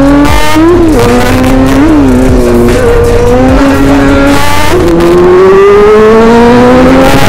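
Kawasaki Z1000's inline-four engine under way, loud, its pitch climbing and dropping back several times as the throttle is worked.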